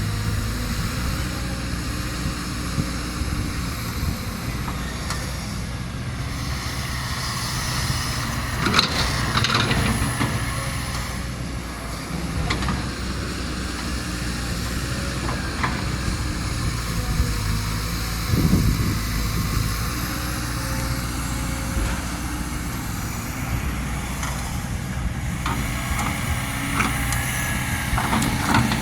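Kobelco SK200 hydraulic excavator running steadily while loading soil, with a few short clanks and hisses scattered through.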